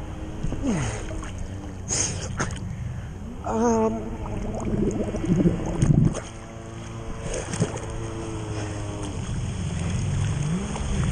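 Water rushing and splashing against a camera skimming the surface on a towed tube, with a motorboat's engine running under it.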